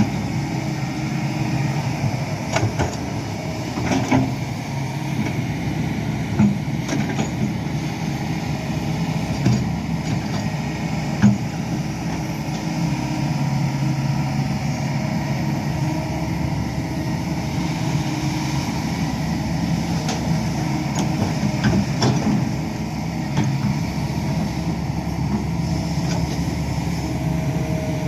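Hydraulic excavator's diesel engine running steadily while it works, with a few short sharp knocks at irregular intervals.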